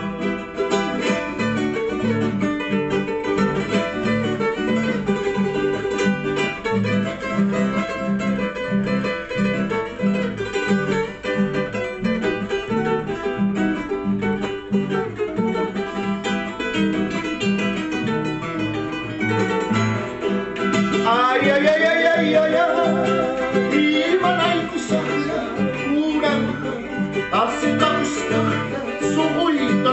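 Acoustic guitar and charango playing an instrumental interlude of a huayno: steady plucked bass notes on the guitar under strummed and picked charango melody. About two-thirds of the way through, a voice briefly joins with a few gliding sung notes.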